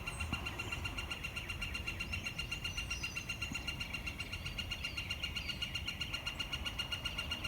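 Red-bellied woodpecker calling: a fast, even series of high notes at one pitch that keeps up steadily and fades out near the end. Other birds sing faintly in the background.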